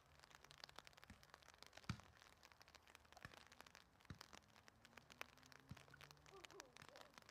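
Faint dull thumps of a soccer ball being kicked and volleyed between two players, a handful of separate kicks, the loudest about two seconds in, over a light scattered ticking of raindrops.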